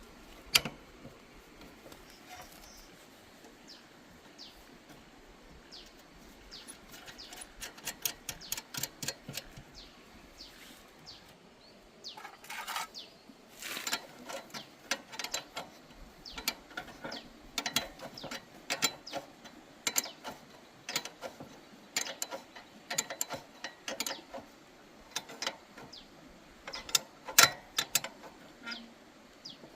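Hand tools working on a wheel during inner-tube replacement: a run of sharp metallic clicks and clinks, sparse at first and coming thick and fast from about halfway through.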